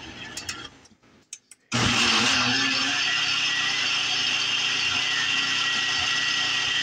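Cuisinart countertop blender: after a few faint clicks it switches on abruptly about two seconds in and runs steadily, blending fruit puree in its jar.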